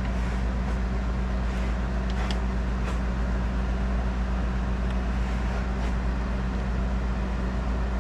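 Steady low mechanical hum, like a running engine or an air-conditioning unit, with a few faint clicks.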